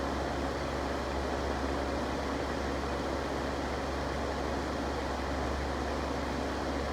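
Electric fan running steadily: an even rush of air over a constant low hum.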